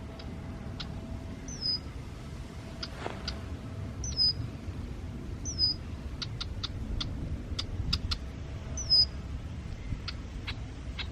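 Red-winged blackbirds scolding: a short, high, down-slurred whistle repeated every few seconds among many sharp chip notes. This is alarm calling at an intruder, a sign of a nest nearby.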